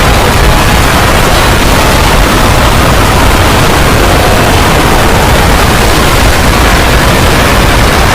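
A loud, steady roar of dense noise across all pitches, heaviest in the low end, with no breaks or separate hits.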